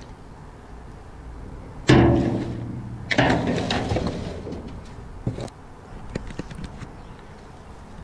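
A loud knock against a metal dumpster about two seconds in, ringing briefly, then a second knock with rustling as bags and clothes are rummaged through, and a few lighter clicks later.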